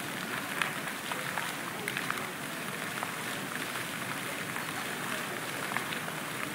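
An airport terminal's performing fountain: many arcing water jets splash down onto its flat, wet surface in a steady patter of drops.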